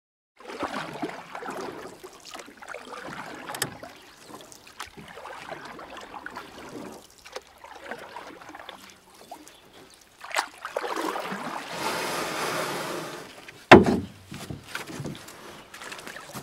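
Water sloshing and splashing around a small boat at sea, with scattered knocks of gear against the boat. A louder rush of water swells for a couple of seconds, then one sharp loud thump comes about three seconds before the end.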